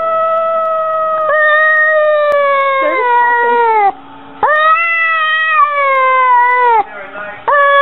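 A domestic cat giving long, drawn-out meows. One call is held to about four seconds in, a second runs from about half a second later to nearly seven seconds, and each sags in pitch as it ends. A shorter call follows, and another starts near the end.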